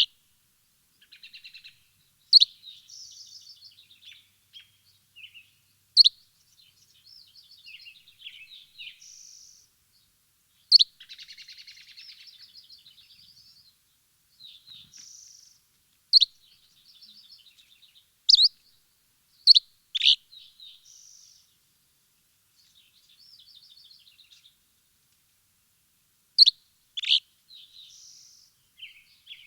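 Songbirds chirping: loud, sharp, high chips come every two to four seconds, with softer, rapid twittering phrases in between.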